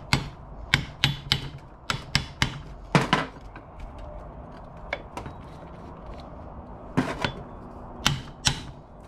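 Steel ball-peen hammer knocking on an air-cooled VW connecting rod to unseat it from the crankshaft journal, with the rod nuts left on to protect the studs. About a dozen sharp metal knocks at uneven spacing, some with a brief ring, and a pause in the middle.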